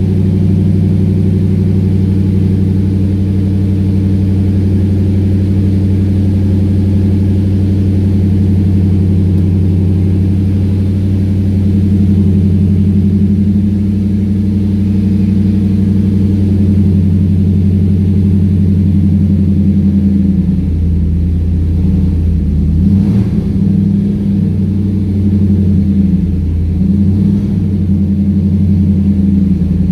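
2003 Ford SVT Lightning's supercharged 5.4-litre V8, fitted with a 2.3-litre Whipple supercharger, idling steadily while it warms up from cold. About twenty seconds in, the idle turns uneven, dipping and picking back up, with a brief sharp blip a few seconds later.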